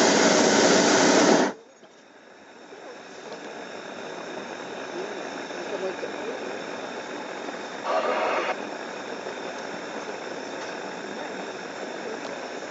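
Hot-air balloon's propane burner firing loudly with a steady rushing noise that cuts off suddenly about a second and a half in. After that there is only a quiet hiss, with one short burst of noise about eight seconds in.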